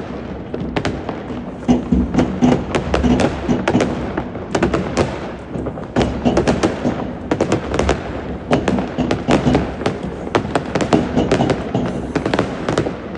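New Year's Eve fireworks and firecrackers going off all around: a dense, irregular stream of sharp bangs and crackling pops with deeper thuds, many overlapping each second.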